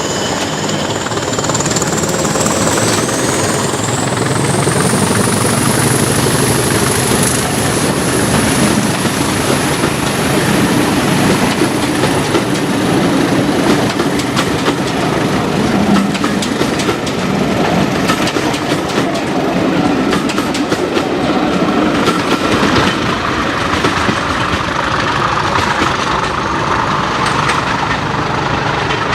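Heritage diesel locomotive hauling a train, its engine running loud and steady with a high whine that rises over the first few seconds and then holds, and wheels clicking over the rail joints.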